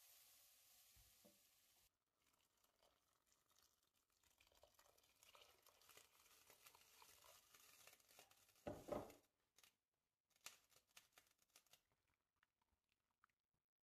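Faint sizzling of red lentils sautéing in a stainless steel pot, which stops abruptly about two seconds in; then water poured into the hot pot, splashing and hissing, with a louder bump about nine seconds in, and a few scrapes and knocks of a wooden spatula stirring near the end.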